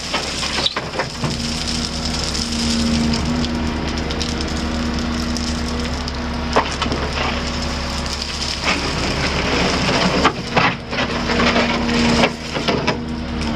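Volvo 220E excavator bucket scraping and raking gravel out of a raised steel dump truck bed: grinding steel and crunching, sliding gravel, with several sharp clanks over the excavator's diesel engine running steadily underneath.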